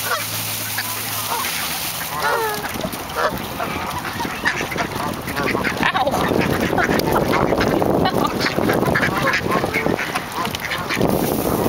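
A feeding flock of ducks and geese: ducks quacking and geese honking, with a busy patter of quick clicks and rustles as bills pick corn from a hand and the ground, denser in the second half.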